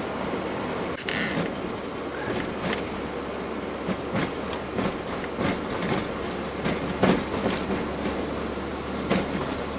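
Road and engine noise inside a moving GAZelle van's cab, with irregular knocks and rattles.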